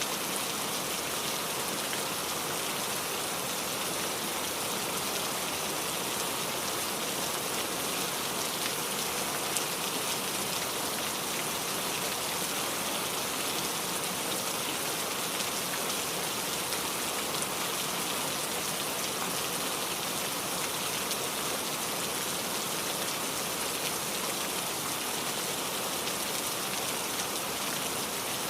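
Heavy rain falling steadily on a surface, an even dense patter with no letup.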